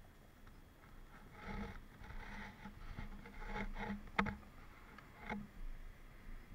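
Handling noise from clothing and a plastic measuring cup: a run of irregular rustles and scrapes, with one sharp click about four seconds in.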